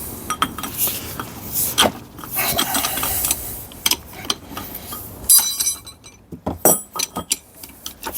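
Metal hand tools clinking and knocking against steel gearbox parts, with one ringing metallic clank about five seconds in.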